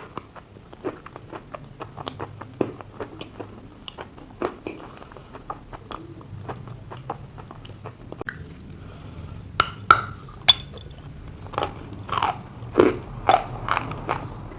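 Close-up crunching and chewing of dry chalk mixed with clay paste, in irregular crisp crunches. A couple of loud sharp bites snap about ten seconds in, followed by denser chewing.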